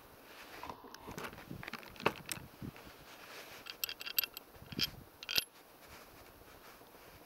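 Small metallic clicks and light taps from handling the metal parts of a black-powder .45 double-barrel derringer during loading. A few sharper, briefly ringing clinks come about four to five and a half seconds in.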